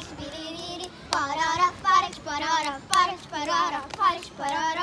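Children singing a hand-clapping game chant, with sharp claps of their hands against each other's between the sung lines.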